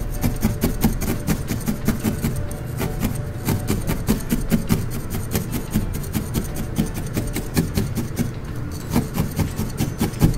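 Felting needle stabbing rapidly into a wool ball on a brush felting mat: a quick, irregular run of soft scratchy pokes, many a second.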